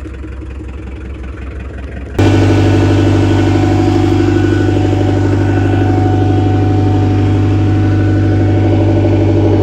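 Bobcat 743 skid steer engine running steadily. About two seconds in it becomes abruptly much louder and then holds steady.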